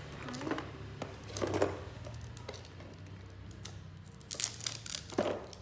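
Plastic wrapping of an L.O.L. Surprise toy ball being crinkled and torn open by hand, in a few short bursts with a longer run of crinkling near the end.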